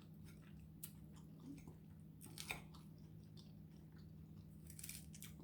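Faint close-up chewing of food, with a few soft crunchy clicks, over a low steady hum.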